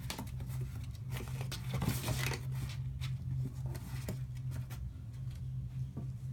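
Kittens scrabbling in and on a cardboard box: light scratches, taps and a brief rustle about two seconds in, over a steady low hum.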